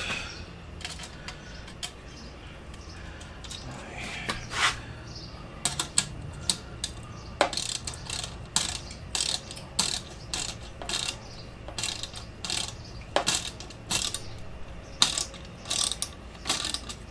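Ratcheting screwdriver clicking as screws are driven into a metal license plate bracket. The clicks are sparse at first, then come in short quick runs from about six seconds in.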